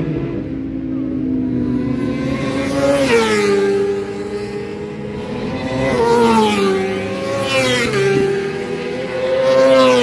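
Racing motorcycles passing at speed one after another, the high-revving engine note dropping in pitch each time a bike goes by, four times in all.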